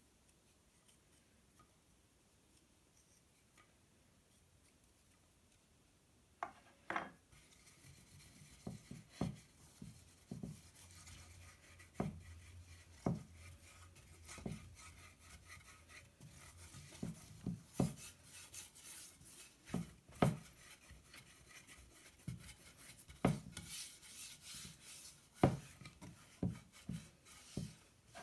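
Hands rubbing and scraping inside a terracotta Roman clay baking dish, with irregular sharp knocks against the dish. The sounds start about six seconds in, after a quiet start.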